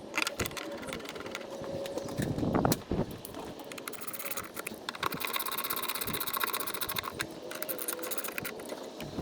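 A 1/4-inch socket ratchet clicking in rapid runs as bolts are driven in, with the densest run from about four to seven seconds in.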